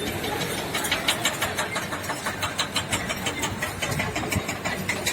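An engine running steadily, with a rapid, even ticking.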